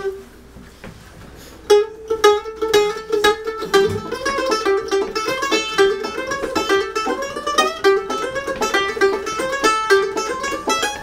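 Mandolin picking the fast melody that opens an original bluegrass instrumental, starting about two seconds in after one plucked note and a short pause.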